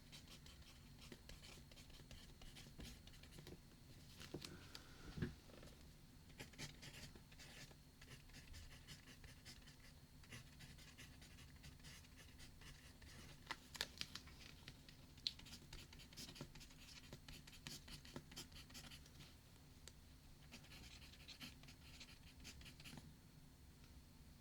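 Faint writing on paper: irregular scratchy strokes of a pen or pencil, with a few sharper taps, over a low steady room hum.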